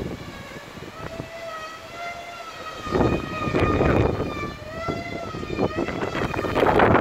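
A traditional Bermuda kite's hummer droning in the wind, high overhead: one steady pitched tone that wavers slowly up and down. Gusts of wind rumble on the microphone, heaviest near the end.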